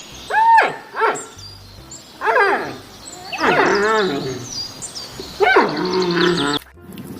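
A series of four loud animal calls, each rising and falling in pitch, played as sound effects over background music.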